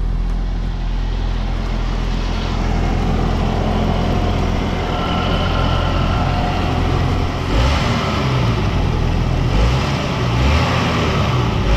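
Saab turbocharged four-cylinder engine idling steadily just after its first start on a newly fitted throttle body, running smoothly; it sounds good. A few low bumps come in the second half.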